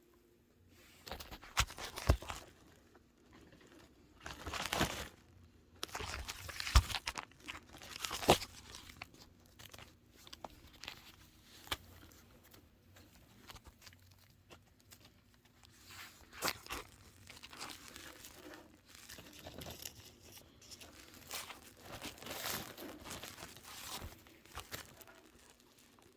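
Baby angora chinchillas moving about and playing: irregular rustling, crinkling and scratching, with scattered sharp clicks and knocks.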